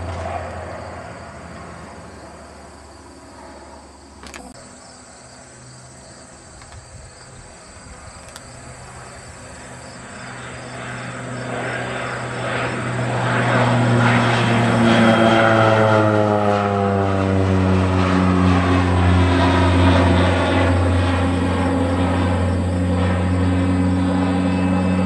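Crop-dusting airplane's propeller engine, growing from faint to loud as the plane makes a low pass. Its pitch falls as it goes by, about two thirds of the way through, and it then settles into a steady loud drone.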